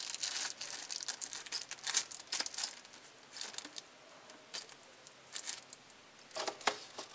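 Clear plastic packaging bag crinkling and rustling in irregular bursts as the side cutters sealed inside it are handled. The crinkling is busiest for the first three seconds, thins out, then comes again briefly near the end.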